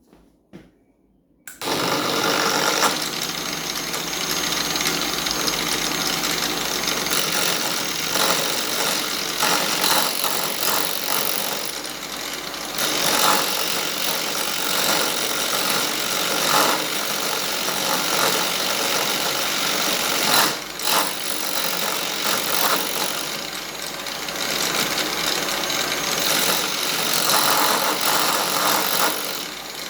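Milwaukee AGV 15-125 XE angle grinder starting up about a second and a half in, then running at its lowest speed of 2,800 RPM while a carbide turning bit cuts the spinning 150 mm sanding disc. The cutting noise swells and eases repeatedly.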